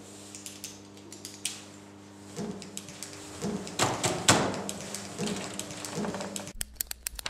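Hands striking and tapping a computer keyboard and desk: a handful of irregular knocks, two louder ones around the middle, over a steady low hum. Near the end the hum drops away and quick sharp clicks follow.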